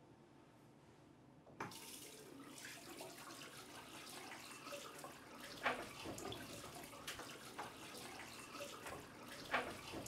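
Washbasin tap turned on about a second and a half in, water running steadily into the sink, with scattered clicks and two sharper louder ones standing out.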